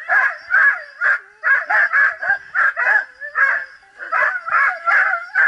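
A dog on a scooter towline barking in rapid, high-pitched yelps, about two or three a second without letup, while held back at the start.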